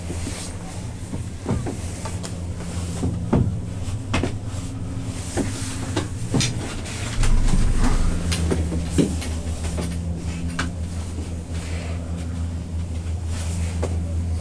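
Riding inside a Doppelmayr D-Line ten-seat gondola cabin: a steady low hum with scattered clicks and knocks, and a louder, deeper rumble for about a second around halfway.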